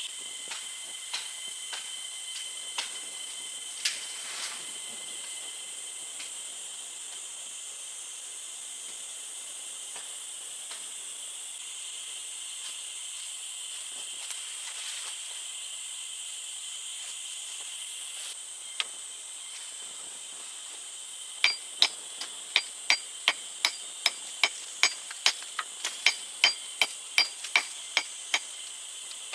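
Steady high-pitched insect drone of the forest. Past two-thirds of the way through comes a run of about twenty sharp, evenly spaced knocks, about three a second, like a tool striking wood, with a few single clicks earlier.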